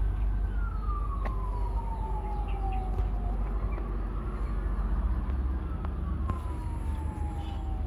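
A wailing siren, one clean tone slowly sweeping up and then down in pitch, falling twice over a few seconds each time, over a steady low rumble.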